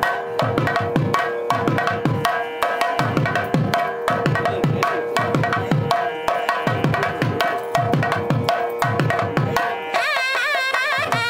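Wedding melam: a thavil drum playing quick, dense strokes, its deep strokes dropping in pitch, over a steady drone. Near the end a nadaswaram comes in with a wavering, ornamented melody.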